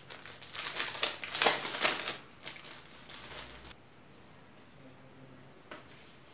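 Kraft-paper envelope crinkling and rustling as it is opened and a set of printed cards is slid out. The sound is loudest in the first two seconds and dies away after about three and a half.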